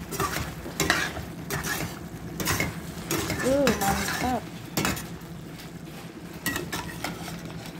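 A metal spoon stirring penne in a thick cream sauce in a stainless steel pan, with repeated scrapes and knocks of the spoon against the pan.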